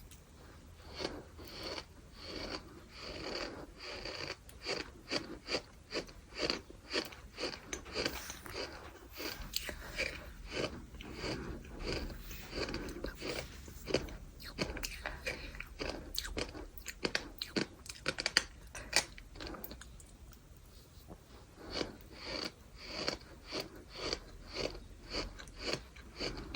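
Bird sand being chewed: gritty crunches repeated about twice a second, with a short pause about 20 seconds in.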